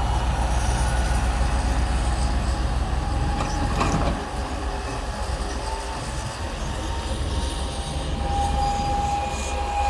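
Bulldozer working: a steady engine rumble with high metallic squealing from its steel tracks, which comes and goes. A sharp clank about four seconds in, after which the engine sound eases.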